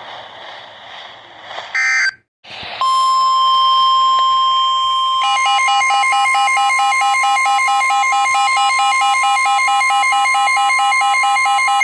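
Emergency Alert System tones. A brief burst of digital header data comes about two seconds in, then a steady 1050 Hz NOAA Weather Radio warning alarm tone. About five seconds in, a second, rapidly pulsing lower tone joins it, and the two sound together.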